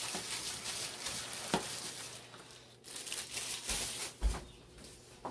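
A plastic-gloved hand rubbing seasoning into a raw steak: crinkling of the plastic and wet squishing of the meat for about two seconds, with a sharp click partway through. After that come a few soft, dull thumps.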